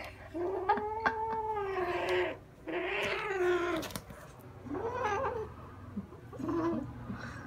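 Orange tabby kitten growling with a fluffy toy clamped in its mouth: four long, wavering growl-yowls, the first two longest and the last two shorter. It is a possessive growl, guarding the toy it won't let go of.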